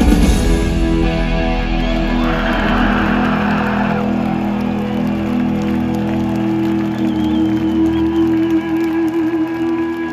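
Live rock band ending a song in an arena: the drums drop out and the last chord is held and rings out on steady sustained tones, with faint crowd whoops.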